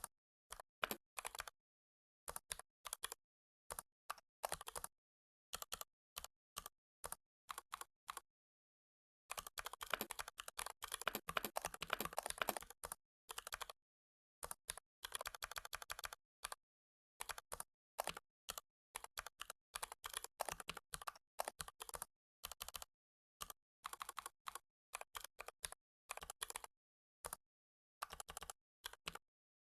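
Typing on a computer keyboard in short bursts of keystrokes with dead silence between them, including one long fast run of typing about a third of the way in.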